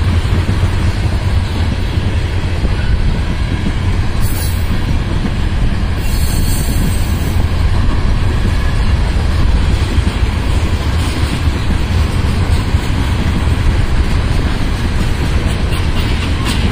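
Freight train tank cars rolling past: a steady, loud low rumble of steel wheels on rail, with brief high hisses about four and six seconds in.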